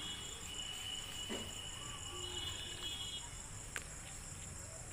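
Faint steady high-pitched insect trill in the background, with a couple of small clicks.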